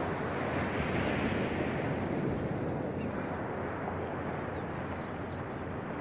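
Small sea waves breaking and washing up a sandy beach: a steady surf hiss that swells about a second in and eases off a little toward the end.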